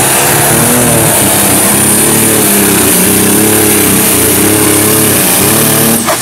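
Pro Stock pulling tractor's turbocharged diesel engine at full throttle, dragging a weight-transfer sled. Its pitch rises and dips under the load, with a steady high whistle over it. About six seconds in, the throttle comes off and the sound drops sharply.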